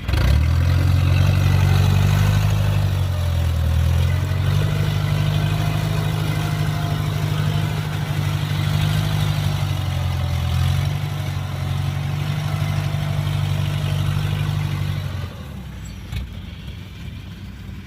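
Kubota combine harvester's diesel engine running steadily and loudly, its pitch shifting slightly a couple of times, then dropping away about fifteen seconds in.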